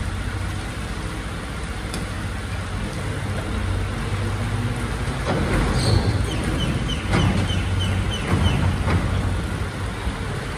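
Mercedes-Benz Actros rear-loader garbage truck running with its compactor working: a steady low engine and hydraulic hum. From about five seconds in come louder clanks and rattles of the packer and bin lifter, with a quick run of short high squeaks.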